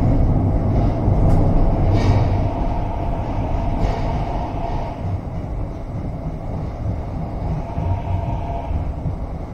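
Kawasaki Sifang T251 metro train heard from inside its front car as it brakes into a platform: a steady rumble of wheels on rail that grows quieter as it slows, with a faint steady whine. A few sharp clicks come in the first four seconds.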